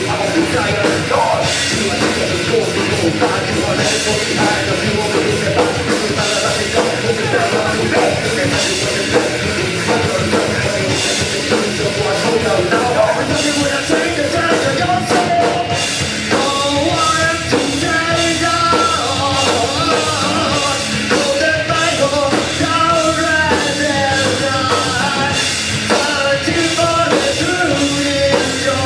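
Live rock band playing loudly, with a melodic line coming to the fore about halfway through.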